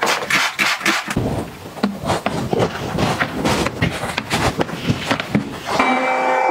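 Irregular clicking, rustling and spraying from handling cleaning things. Near the end a handheld cordless window vacuum switches on and runs with a steady hum as it sucks dirty water off the glass.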